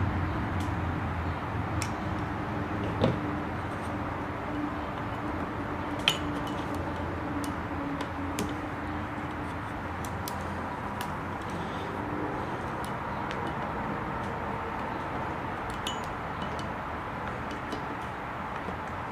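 A few light clicks and taps, the sharpest about six seconds in, over a steady low background noise.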